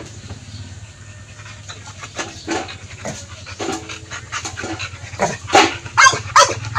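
A dog panting in quick, uneven breaths, getting louder toward the end.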